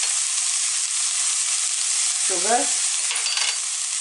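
Stir-fried cabbage, carrots, bell pepper and green beans sizzling steadily in a hot skillet, frying on the pan's remaining heat with the gas burner turned off.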